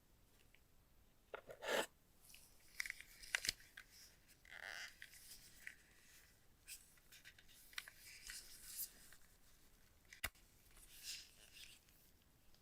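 Phone box packaging being handled and torn open: a string of short rustles, scrapes and tearing sounds, with a sharp click near the end.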